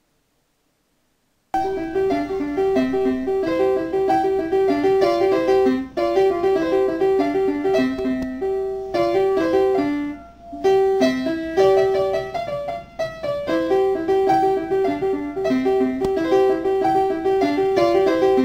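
Piano music with a quick, busy melody of repeated notes, starting about a second and a half in after silence.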